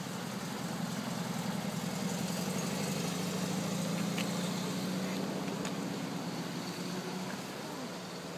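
Volkswagen T1 bus's air-cooled flat-four engine running steadily as the bus pulls away, its low drone swelling a little and then slowly fading as it drives off.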